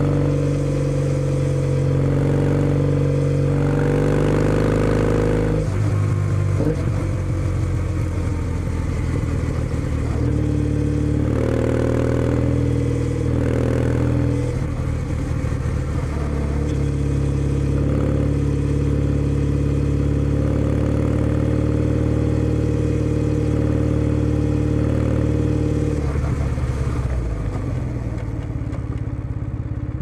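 Kawasaki W650's air-cooled parallel-twin engine running through a POSH W1 full aftermarket exhaust while riding: a gear change about five seconds in, more throttle changes a few seconds later, steady cruising through the middle, and slowing down near the end.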